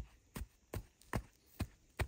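A steady run of sharp knocks or thuds, about two and a half a second, each with a low thump.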